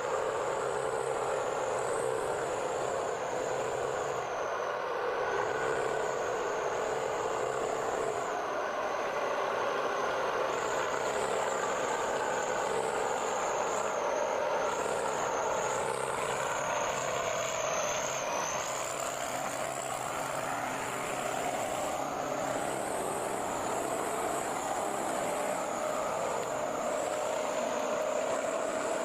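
A forestry forwarder's diesel engine running steadily as the machine drives, with a thin high whine that rises and falls throughout.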